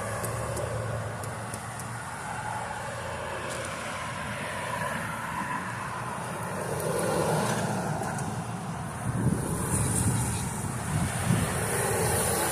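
Road traffic passing, cars swelling louder and fading, with wind on the microphone.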